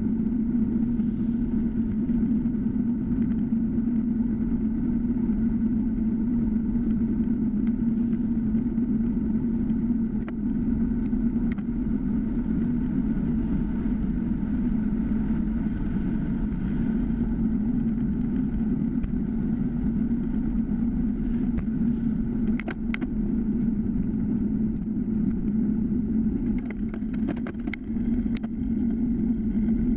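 Steady rumble of wind and tyre-on-asphalt noise from a time-trial bicycle riding at speed, picked up by a handlebar-mounted GoPro. A few short sharp clicks come about two-thirds of the way through and again near the end.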